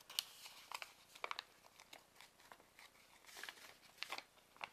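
Faint rustling and crinkling of a sheet of origami paper as fingers fold and crease it, in short irregular crackles.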